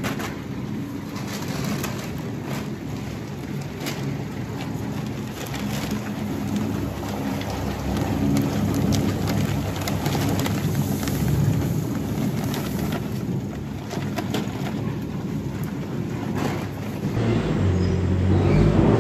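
Pelleted cattle feed pouring from a paper sack into a stainless steel feed bin, a rattling hiss of many small clicks, over a steady low machine hum. Near the end the sound changes to a louder low hum.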